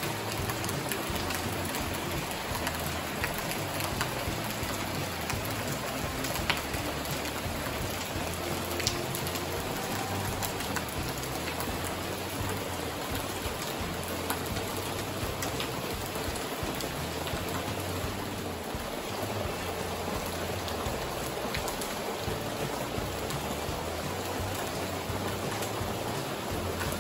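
Steady rain falling on leaves and a corrugated roof, with scattered single drops tapping sharply.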